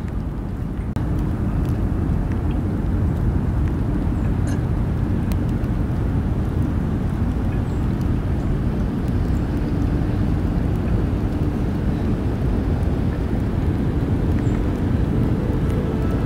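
Steady low rumble of distant traffic, with a faint hum that comes and goes; it gets a little louder about a second in.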